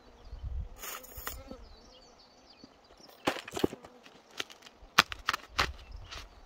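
Hand-work handling noise: a brief rustle over a low rumble, then from about three seconds in a run of sharp, irregular clicks and knocks as branch-tying materials are handled at ground level.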